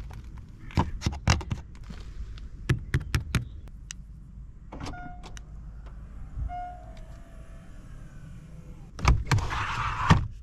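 Mercedes C-Class Estate tailgate being worked: a run of sharp latch clicks and clunks, a short electronic beep about five seconds in, then a loud rushing, thudding sound near the end.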